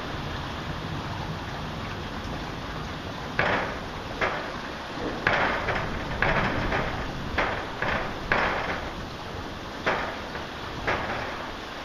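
Heavy rain falling steadily, with a run of short, sharp bursts of noise from about three seconds in, irregular and close together.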